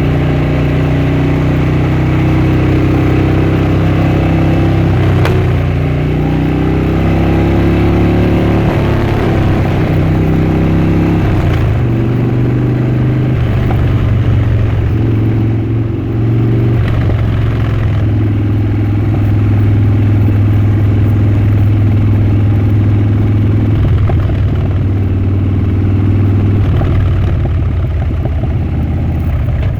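Harley-Davidson Dyna Switchback's V-twin engine and exhaust running under way, loud throughout. Its pitch rises with the throttle and drops several times, as at gear changes, then holds steadier at a lower pitch in the second half.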